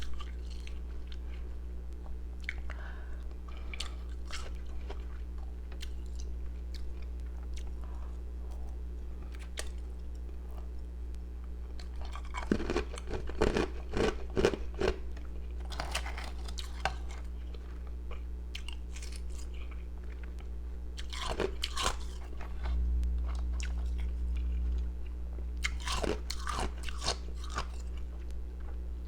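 Powdery, carbonated ice pieces being bitten and chewed close to the microphone: scattered crisp crunches, with the heaviest bursts of crunching about halfway through and again in the last third. A steady low hum runs underneath.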